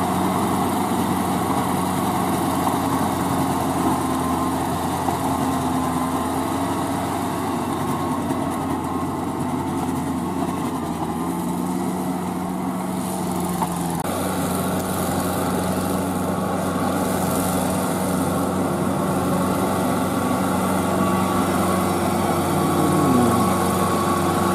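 Kubota L4508VN tractor's V2203 four-cylinder direct-injection diesel running steadily under load as it drives a tiller through a flooded field. The sound changes abruptly about 14 seconds in.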